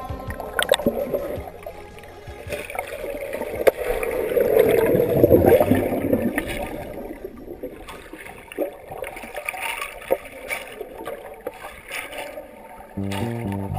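Canoe paddling: water splashing and sloshing in uneven swells, with scattered light knocks. Music comes in near the end.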